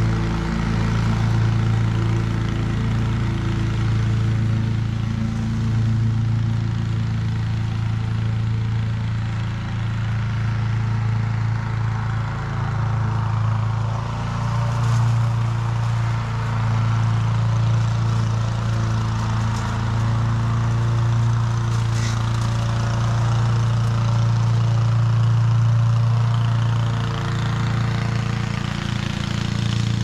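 Honda HRC216 walk-behind mower running steadily under cutting load, its single-cylinder Honda GXV160 engine giving a constant low hum. The higher, hissy part of the sound thins out in the middle as the mower heads away and fills in again near the end as it comes back.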